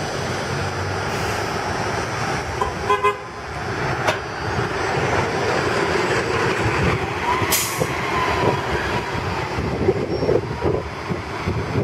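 MTA city bus driving past close by and pulling away, its engine running under steady road noise. A short pulsing beep sounds about three seconds in, and a brief hiss comes a little past halfway.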